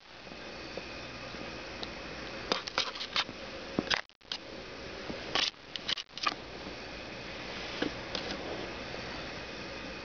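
Steady hiss of a camera's microphone in a small room, with a handful of sharp clicks and rustles of handling in the middle; the sound cuts out for a split second twice.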